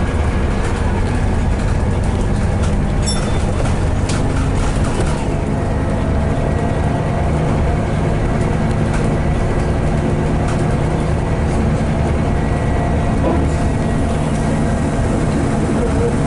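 Scania N230UD double-decker bus's five-cylinder DC9 diesel engine running steadily under way, heard from the upper deck along with road noise. A few short clicks or rattles about three to four seconds in.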